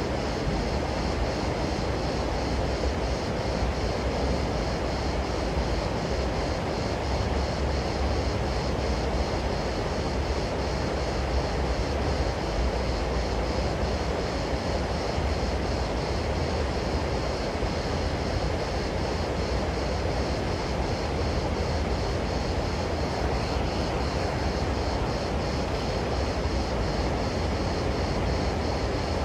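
Steady low rumble of outdoor background noise, even throughout, with no distinct calls or knocks standing out.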